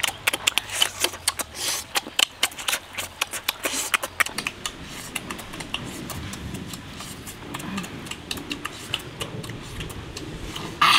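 Close-up mouth sounds of someone eating roasted meat: wet chewing and lip-smacking clicks, dense and irregular at first and thinning out after about five seconds.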